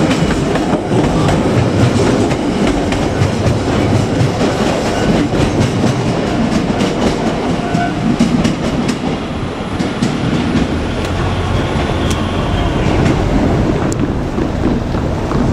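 A JR Kyushu 817 series electric train running past, its wheels clicking over the rail joints in a steady clickety-clack over a continuous rumble. The clicks space out in the later part of the pass.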